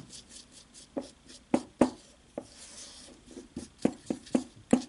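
A brush stirring dry baking soda and starch powder in a small glass bowl: a soft scratchy rubbing, broken by irregular light clicks and taps as the brush knocks against the glass.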